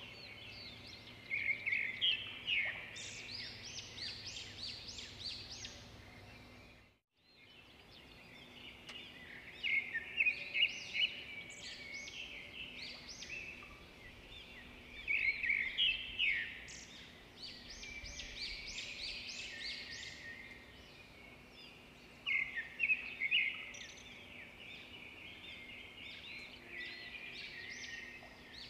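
Small birds chirping and twittering, many short overlapping calls, with a brief drop-out about seven seconds in.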